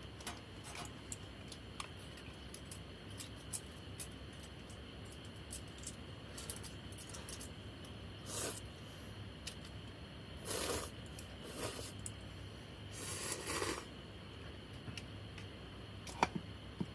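Small handling sounds: scattered light clicks and taps, with a few short rustling or scraping bursts over a low steady hum.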